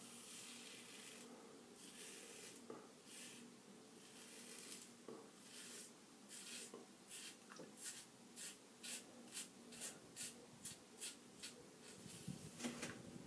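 Hydra x6 3D-printed safety razor scraping through a heavy growth of stubble in short, faint strokes. The strokes come about two a second through the second half.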